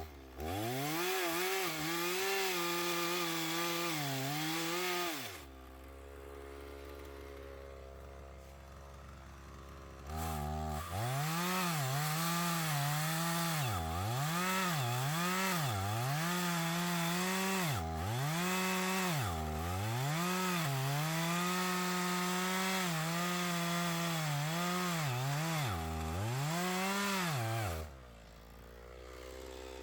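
Two-stroke chainsaw cutting into a log to hollow it out. The engine runs at high speed, and its pitch drops again and again as the chain bites into the wood. It falls back to idle for about five seconds a few seconds in and again near the end.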